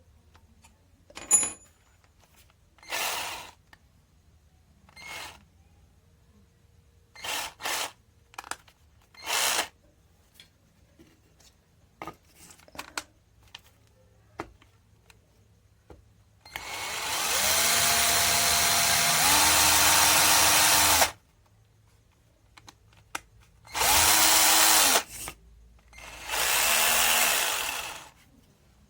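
Cordless drill motor run in short trigger blips among light clicks, then a steady run of about four and a half seconds whose pitch steps up twice as it speeds up, then two shorter runs near the end.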